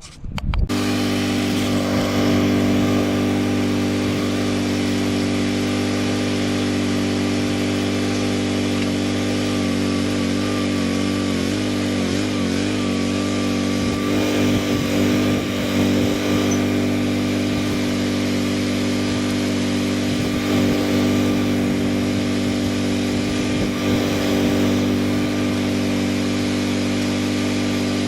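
Boxer 320 mini skid steer's engine running steadily under throttle, with a brief wavering in pitch partway through.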